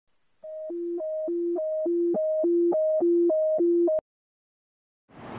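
Hi-lo two-tone siren sound: a high tone and a low tone about an octave apart alternate every third of a second, about seven high-low cycles. It cuts off abruptly about four seconds in.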